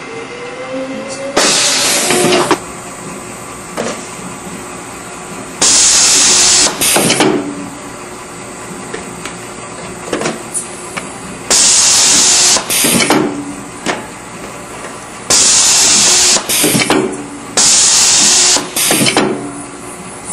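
Pneumatic label applicator on a conveyor line, cycling with loud bursts of compressed-air hiss: five long blasts about a second each, most followed by a shorter puff, at uneven intervals over a steady machine hum.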